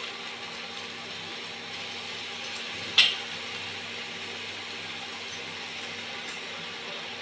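Wooden spatula knocking and scraping in a metal kadai while turning freshly added wet drumstick leaves, over a steady sizzling hiss. There are scattered light clicks and one sharp knock about three seconds in.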